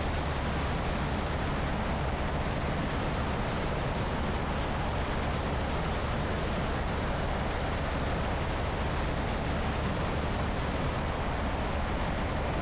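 Steady rush of airflow buffeting a camera mounted on the outside of an Ercoupe 415-C in climbing flight, a heavy low rumble with a hiss above it, over the drone of its Continental C85 engine and propeller.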